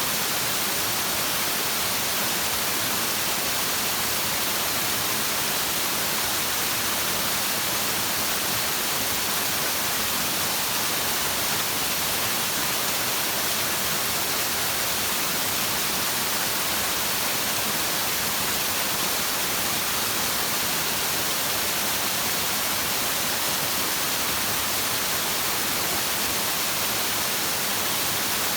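Flowing stream water making a steady, even rushing hiss, with no breaks or changes.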